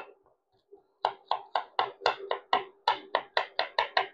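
A small kitchen knife chopping on a wooden cutting board. After a single knock, quick even chops start about a second in and keep up at about four a second.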